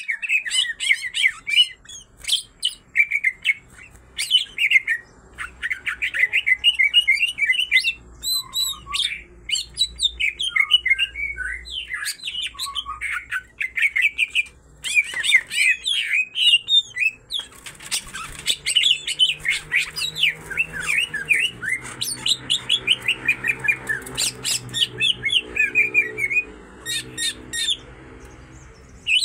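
A pair of greater green leafbirds (cucak ijo), male and female, both in full song: a near-continuous run of rapid, varied chirps, whistles and harsh notes.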